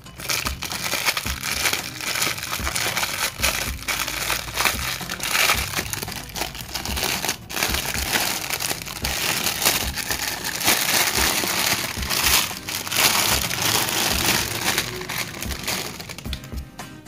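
Clear plastic wrapping crinkling as it is handled and pulled off a roll of hot stamping foil, a dense crackle throughout.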